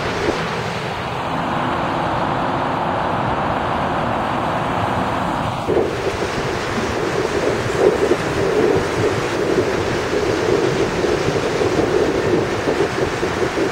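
Rubber-tyred Montreal Metro train running past a station platform: a steady rushing rumble with a faint hum, which changes suddenly a little before halfway to a rougher, louder rumble.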